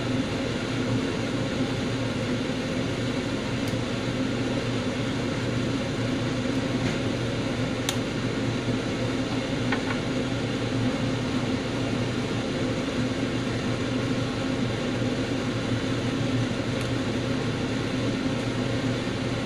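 Steady, unchanging hum of a kitchen appliance's fan running, with a low drone underneath. A couple of faint short clicks about eight and ten seconds in.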